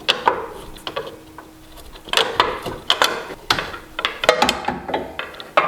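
Irregular metallic clicks and knocks as the old front control arm of a BMW E92 335i is worked loose and pulled free of the suspension.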